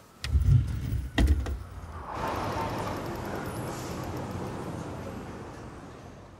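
A wooden dresser drawer knocking twice as it is handled, each a sharp click with a heavy low thud. Then steady city street traffic noise comes in about two seconds in and slowly fades near the end.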